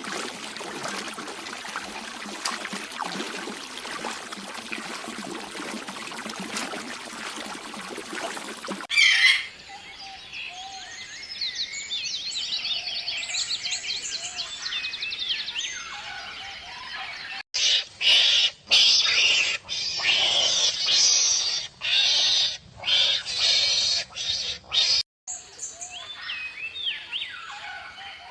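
Songbirds calling and chirping in quick, high repeated notes, in several short clips joined by abrupt cuts, the densest chirping in the middle. It is preceded by about nine seconds of an even crackling hiss.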